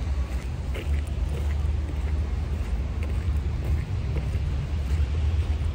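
Outdoor city street ambience: a steady deep rumble with a faint hiss above it and a few soft, scattered ticks.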